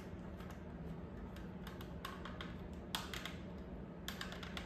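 Irregular small clicks and taps from handling a Riddell Speedflex face mask with a Shoc Zero G visor held on by visor clips, coming in short clusters, the sharpest about three seconds in.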